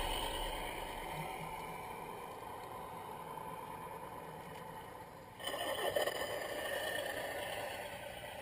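Electric motors and gear drivetrains of radio-controlled scale crawler trucks whining steadily as they drive through sand, getting suddenly louder about five seconds in.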